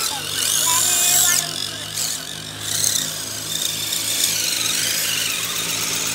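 The electric motors of radio-controlled scale crawler trucks whining as they climb a dirt trail. About a third of a second in, a high whine rises sharply and holds, then cuts off after about a second and a half. A fainter wavering whine follows.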